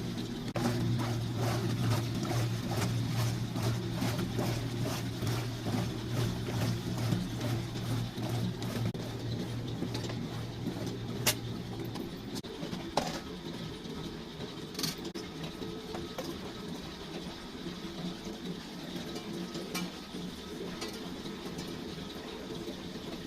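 Antique electric wringer washing machine running: a steady motor hum with a rapid, even clicking from its mechanism. About halfway through the hum drops away, leaving a lighter mechanical sound with a few sharp clicks.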